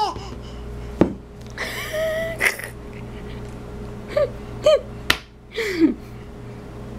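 Baby vocalizing in short high-pitched sounds: a held squeal, two quick chirps and a falling whine, with a couple of sharp clicks between them.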